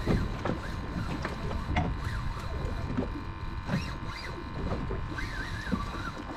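Fishing reel being cranked in short mechanical clicks and knocks as a hooked fish is brought up, over a steady low rumble of wind and water around the boat.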